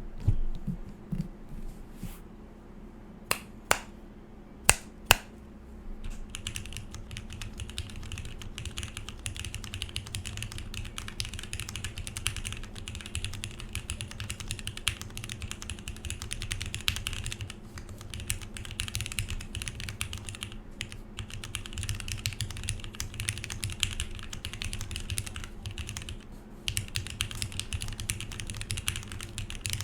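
Typing on a sandwich-mount Alice-layout mechanical keyboard with lubed Cherry MX Black linear switches, a polycarbonate plate and GMK keycaps. A few separate sharp key strikes come first, then steady, fast typing from about six seconds in.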